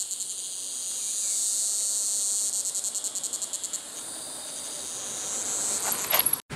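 Dense, high-pitched insect chorus buzzing steadily, with a fast pulsing of about nine beats a second that comes and goes. Near the end a bicycle rides past close by, with a few short clicks and rattles.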